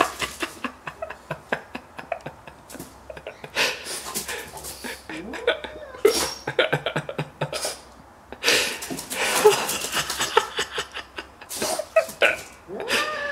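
French bulldog huffing and snorting in short, irregular bursts of breath while it plays.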